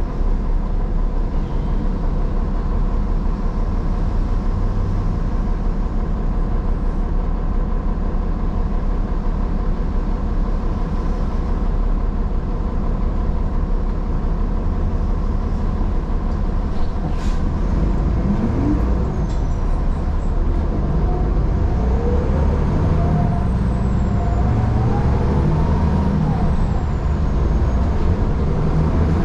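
City bus heard from inside while riding: a steady low engine drone with road noise. In the second half, whines rise in pitch several times as the bus speeds up.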